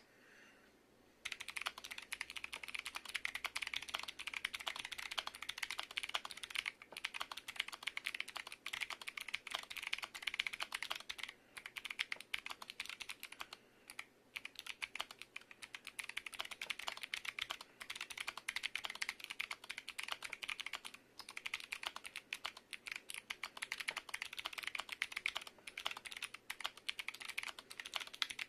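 Fast typing on a MonsGeek M7W aluminium mechanical keyboard fitted with Kailh Box Jade clicky switches: a dense run of sharp, very clicky keystrokes starting about a second in, broken by a few short pauses.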